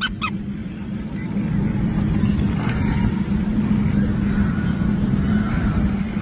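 A steady motor hum over a low rumble, even in level throughout.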